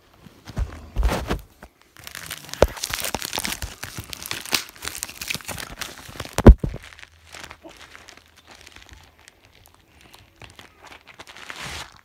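Packaging crinkling and rustling as it is handled and pulled apart. There is a thump about a second in and a sharp knock about six and a half seconds in, which is the loudest sound.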